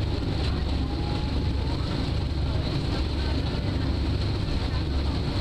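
Steady low drone of a harbour ferry's engine while the boat is underway, with some wind on the microphone.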